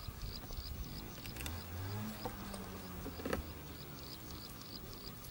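Insects chirping in a steady, even rhythm, about three high chirps a second, with a single sharp knock a little past the middle.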